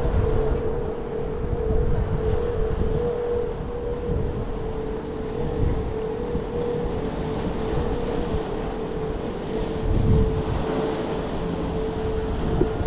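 A steady mid-pitched hum from an unseen machine, with wind rumbling on the microphone.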